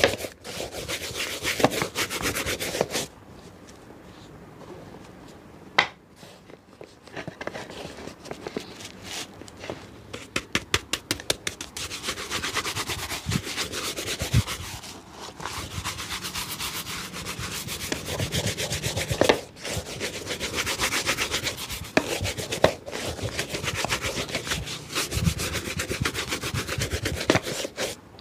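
A shoe being rubbed with rapid back-and-forth strokes, as in shoe-shine brushing or buffing, in long fast runs. A quieter pause of a few seconds near the start holds one sharp knock.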